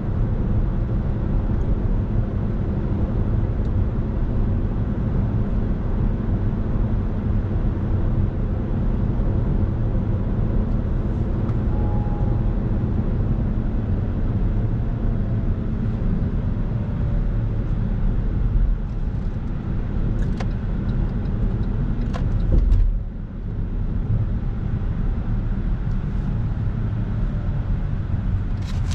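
Steady road and tyre noise heard inside a moving car's cabin, with a few short clicks and a brief louder low bump a little over twenty seconds in.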